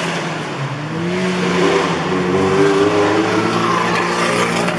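Car engines running on a race circuit, one accelerating with its pitch rising about a second in, then holding a steady drone.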